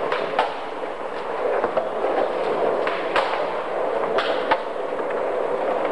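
Skateboard wheels rolling on a smooth hard floor, with several sharp clacks of boards popping and landing.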